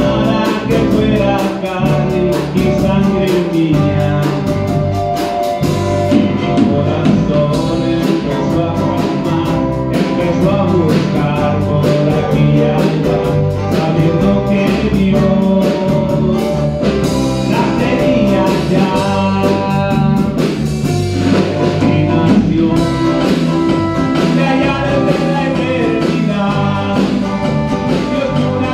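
Live band playing a Christian song: electric bass, acoustic guitar, Casio keyboard and a drum kit keeping a steady beat, with a man singing into a handheld microphone.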